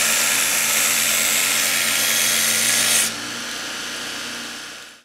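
Belt grinder (a Multitool 2x36 belt attachment driven by a 1975 Craftsman block bench grinder) grinding steel rebar pressed into the platen: a loud, dense hiss over the motor's steady hum. About three seconds in the grinding stops, and the belt and motor run on more quietly before fading out.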